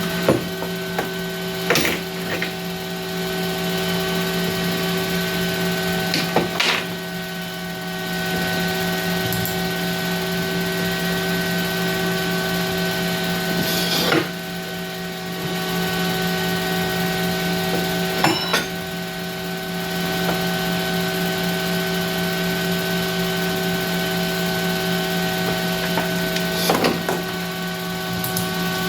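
Workbench extractor fan running with a steady hum, with half a dozen short clicks and knocks of small tools being handled.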